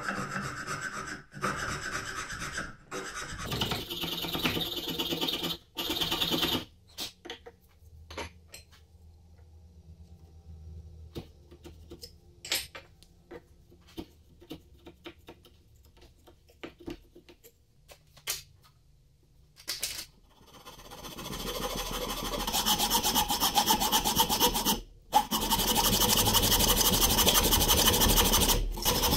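A chisel pares a quartersawn beech plane body in short scraping strokes, followed by a quieter stretch of light clicks and taps. About two-thirds of the way through, a long thin blade starts rasping rapidly back and forth in the plane's throat mortise, loud and steady, with one brief pause.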